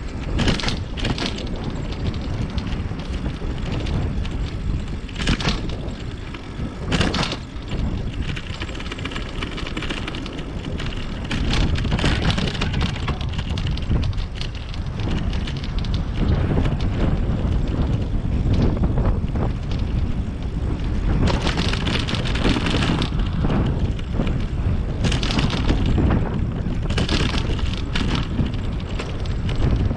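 Wind buffeting the microphone of a camera riding on a moving bicycle, over a steady rumble of tyres on the road, with a dozen or so short louder rushes of noise along the way.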